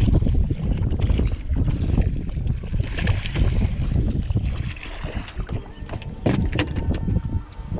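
Wind buffeting the microphone, with a hooked redfish splashing at the surface beside the boat as it is reeled in. A few sharp knocks come near the end.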